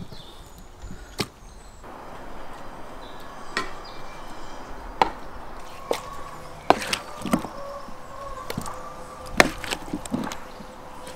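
A wooden spoon knocking and scraping against a cast-iron pot and an enamel bowl as chunks of meat and vegetables are spooned into the pot: a string of sharp, irregular knocks.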